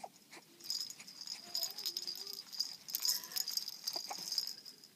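Baby's rattle toy shaking, a crackle of small clicks and jingles, with faint soft cooing from the baby partway through.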